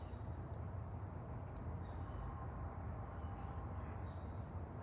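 Steady low background rumble with no distinct event.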